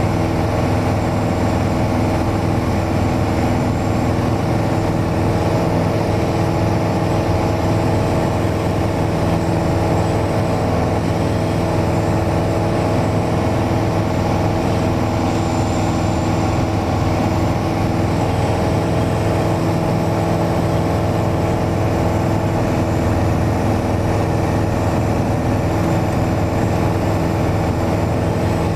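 Mooney single-engine piston airplane's engine and propeller droning steadily in flight, heard from inside the cabin.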